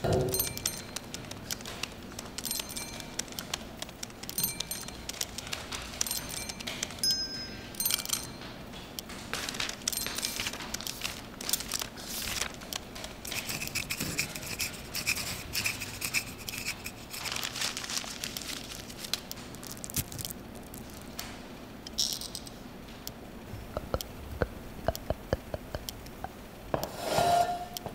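Hand-made foley sound effects layered in sequence: scraping and rustling with many small taps and clicks, broken by short ringing bell-like pings, several in the first eight seconds and a longer held ring with clicking around the middle.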